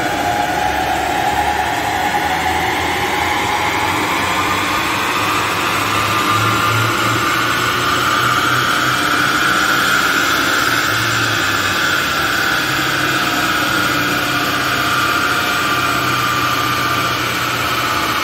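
Mercedes GLC 200d's four-cylinder diesel engine running on a chassis dynamometer, its drive wheels spinning the rollers. A whine climbs slowly in pitch over the first half, then holds and eases slightly near the end.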